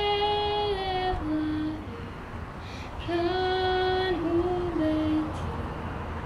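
Women's voices singing a slow melody through a public-address system, with long held notes, in two phrases parted by a pause of about a second. A low steady hum runs underneath.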